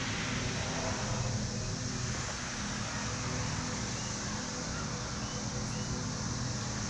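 Steady low hum with an even hiss at a constant level, like a machine or fan running.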